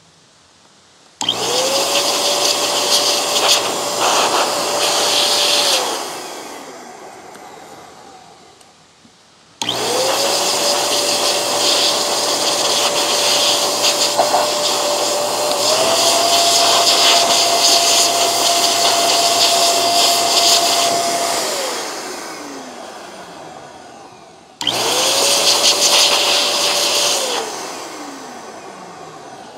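Handheld electric air blower blasting dust out of robot-vacuum filters, run in three bursts. Each burst spins up to a steady whine with a rush of air, then winds down in pitch when released. The second, longest burst steps up a little in speed partway through.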